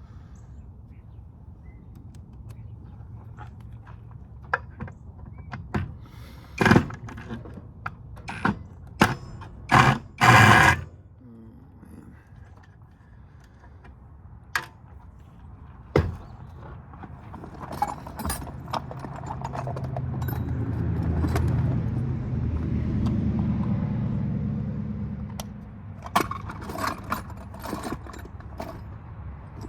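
Clinks, knocks and rattles of metal tools and parts being handled while a power supply is dismantled, with a cluster of loud knocks in the first half. In the second half a low rumble swells over several seconds and fades again.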